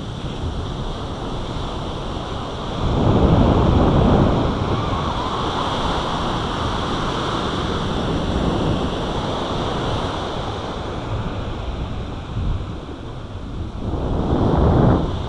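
Ocean surf breaking and washing up the sand, a continuous rushing wash that swells about three seconds in and again near the end, with wind buffeting the microphone.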